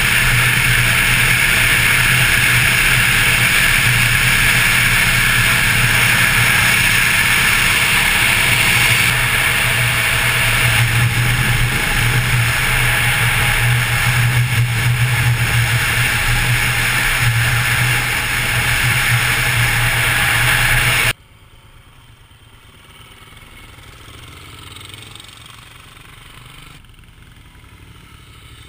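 Motorcycle engine running steadily under heavy wind rush, heard from a camera on the moving bike. About two-thirds of the way through it cuts off suddenly to a much quieter scene, where a motorcycle goes by at a distance.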